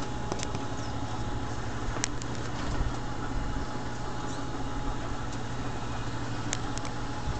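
Motor-driven trommel screen running steadily, its rotating mesh drum sifting worm castings from compost: an even mechanical hum with a faint steady whine and a few sharp ticks.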